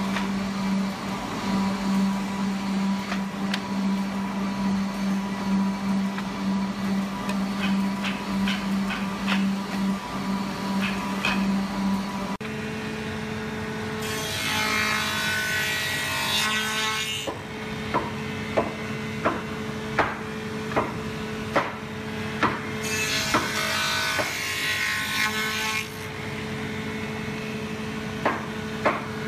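Woodworking machines running: for the first twelve seconds a drum sander hums steadily as thin wood panels pass through it. Then a smaller benchtop woodworking machine runs with a different steady hum; twice a board is machined along it with a rough, raspy cutting sound lasting about three seconds, and between and after these passes come sharp knocks a little more than one a second.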